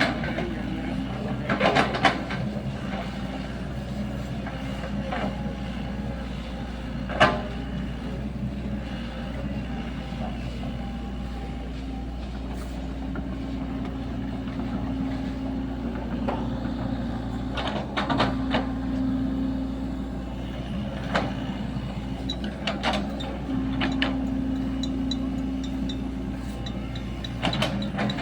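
Sany SY75 mini excavator's diesel engine running under working load while it digs, its pitch swelling and easing as the hydraulics work, with several sharp metallic clanks.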